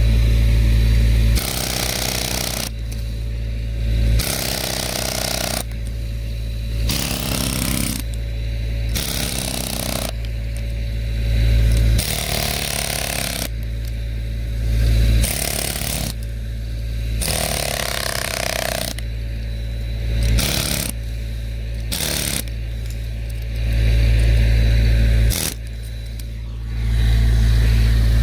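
Pneumatic air hammer with a chisel bit chiselling into tree roots, firing in repeated bursts of a second or two with short pauses between them. A steady low hum runs underneath.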